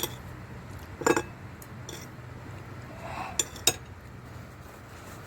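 Eating utensils clinking against a plate a handful of times, the loudest clink about a second in and two quick ones past the middle.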